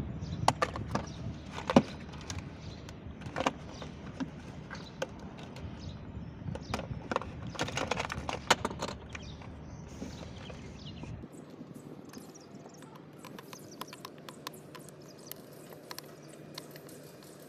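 Scattered clicks and knocks of plastic and wire connectors as wiring is pulled through the plastic body of a kids' ride-on toy car. About eleven seconds in the low rumble drops away and lighter ticks follow as a screwdriver works at the screws of the car's circuit board.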